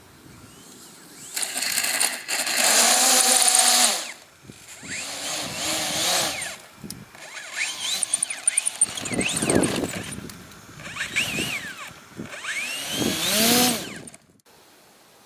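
Brushless electric motor and propeller of a small RC aerobatic plane revving up and down in about five short bursts, its whine gliding in pitch, the first and longest burst the loudest. The throttle is being worked forward and in reverse thrust through a BLHeli ESC set to two-way mode.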